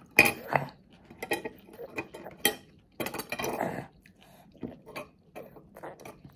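A toddler's fork and spoon clattering against his plate: a run of light clinks and knocks, the loudest just after the start and again about two and a half to three and a half seconds in.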